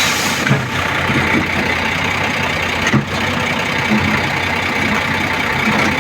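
Backhoe loader's engine idling steadily, with one short click about three seconds in.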